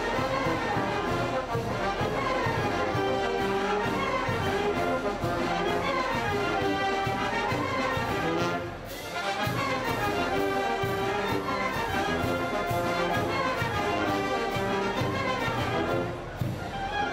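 Oaxacan village brass band (banda filarmónica) playing dance music, brass carrying the tune over a steady beat. The playing breaks off briefly about halfway through and again near the end, between phrases.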